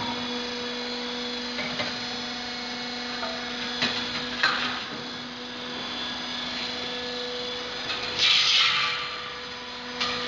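Fan flanging machine running with a steady electric motor hum while its rollers turn a sheet-metal fan casing, with a few light clicks and, about eight seconds in, a brief louder rasping noise.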